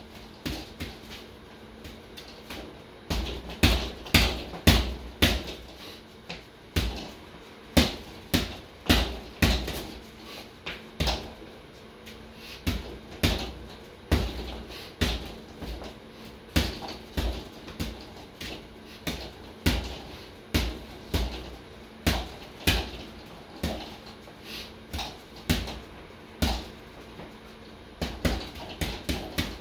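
Boxing gloves smacking a sideways-strung double-end bag (kangaroo bag): sharp strikes in quick, uneven flurries with short pauses between.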